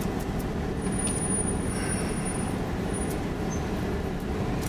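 Steady road and engine noise of a car driving along.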